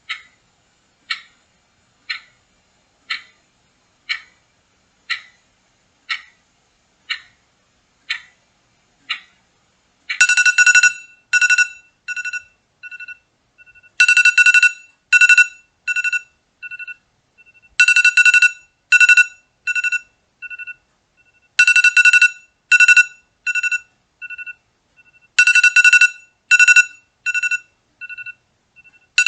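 Clock ticking about once a second for roughly ten seconds, then an electronic alarm goes off, marking the end of the countdown. The alarm is a two-pitch beeping pattern, a long burst followed by a few shorter pips, repeating about every four seconds.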